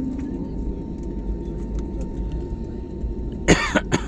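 Steady airliner cabin rumble, with a person coughing twice in quick succession about three and a half seconds in.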